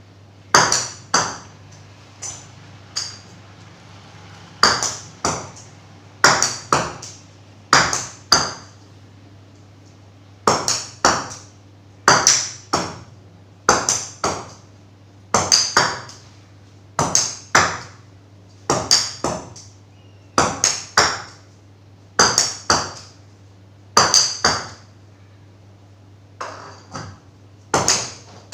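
Tennis ball being struck and bouncing: sharp impacts, each with a short ringing ping, mostly in pairs about half a second apart and repeating every second or two.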